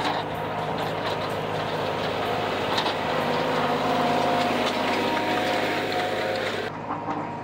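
Compact diesel tractor engine running steadily while the tractor drives close past, pushing snow with a front plow. It is loudest about halfway through.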